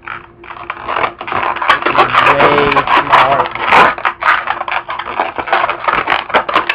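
Long latex modelling balloon being twisted and worked by hand: a dense run of rubbery squeaks, creaks and crackles, with a few short sliding squeals.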